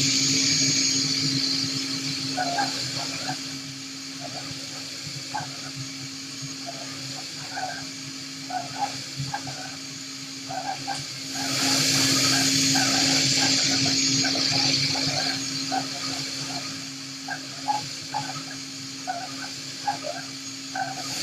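Five-axis CNC milling machine running a cutting job: a steady hum from the machine, with short irregular chirps of the tool cutting and a loud hiss that is strong at first, eases off, and swells again about halfway through.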